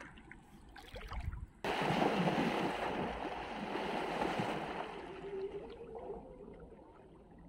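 Bare feet wading through shallow water, sloshing softly with each step. Then, after a cut about a second and a half in, a loud rush of splashing water that fades away over the next few seconds.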